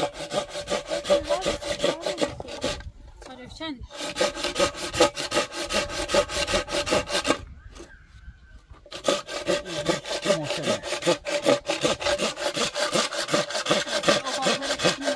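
Hand saw cutting through wood in quick, even back-and-forth strokes, with a pitched rasp to each stroke. It pauses briefly twice.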